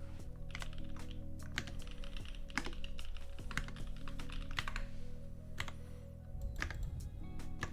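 Typing on a 60% mechanical keyboard with lubed and filmed Gateron PRO Brown 2.0 switches on a brass plate in a wooden case: irregular keystrokes over background music.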